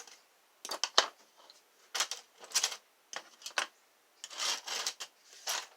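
Handmade music-wire lock picks being handled and shuffled, clicking and rattling together in irregular short bursts. A longer scraping rattle comes about four to five seconds in.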